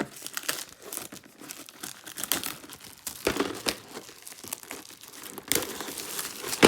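Irregular crinkling and crackling with scattered clicks from a VHS tape case being handled.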